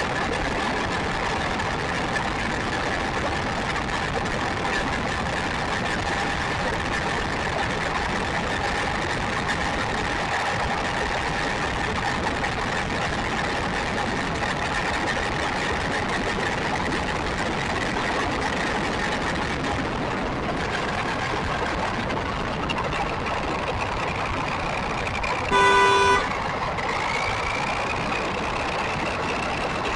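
Onboard sound of a WLtoys electric RC buggy driving on a gravelly road: steady tyre and wind hiss with a faint motor whine that drifts in pitch with speed. About 26 seconds in, a single short vehicle horn toot, the loudest sound, and then the whine rises.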